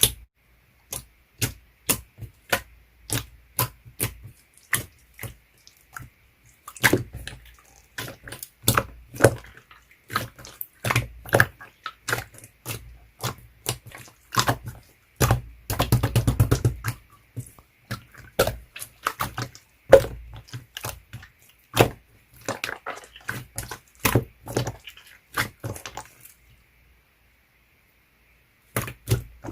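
Clear slime being handled, making sharp irregular clicks and pops. There is a dense run of crackling about halfway through, and it stops for a couple of seconds near the end.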